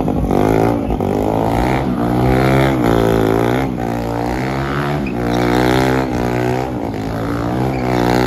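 Engine of a vehicle with a modified exhaust being revved repeatedly, its pitch falling and climbing again about every second or so.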